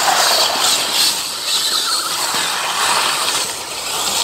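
Electric motors and drivetrains of two scale RC mud trucks whining at full throttle as they drive through wet mud, the pitch rising and falling as the throttle changes.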